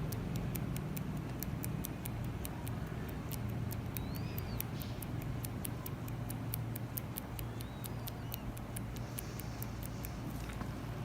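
Hand-held microblading shading needle tapping into eyebrow skin: light, sharp flicking clicks at a steady rate of about four a second, over a low steady hum.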